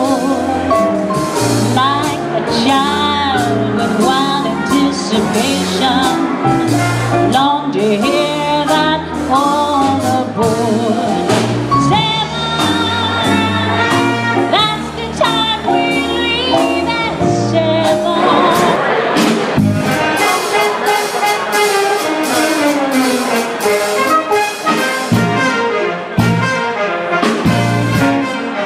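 A live swing band playing, with trumpets and trombones over upright bass and drums, and a woman singing into a microphone.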